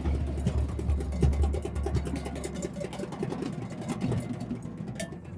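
Drum circle playing: many hand drums and percussion struck in a dense, fast stream of hits. A strong low rumble sits under the first half and fades about halfway through.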